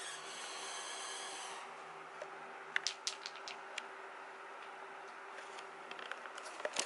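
A kitten playing with a toy on a wooden floor: a rasping rub for the first second and a half, then scattered sharp taps and clicks of claws and toy on the floorboards, with a cluster near the end. A faint steady hum runs underneath.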